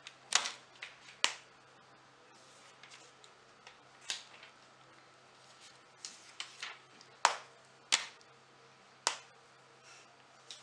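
Sharp clicks and snaps from hands handling chocolate squares at a silicone cake mould, about seven of them at irregular intervals, over a faint low steady hum.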